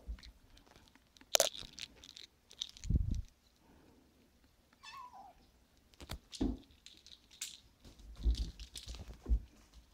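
Siamese kitten giving one short, falling meow about five seconds in, among scattered clicks, knocks and low thumps.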